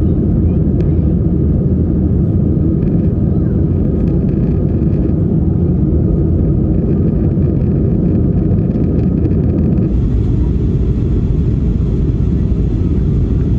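Steady, loud rumble of engine and airflow noise inside the cabin of an Airbus A320 airliner, with a slight change in its character about ten seconds in.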